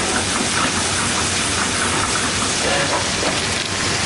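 Frog legs frying in foaming butter in a black steel frying pan: a steady, dense sizzle and crackle as the turned legs cook on their second side.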